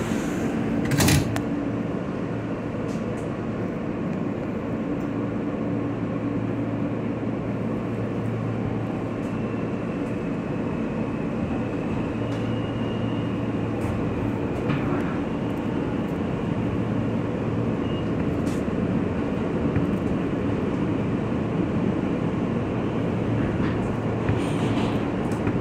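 R160 New York subway car pulling out of a station, heard from inside: a steady rumble of motors and wheels as the train slowly gathers speed. There is one sharp knock about a second in.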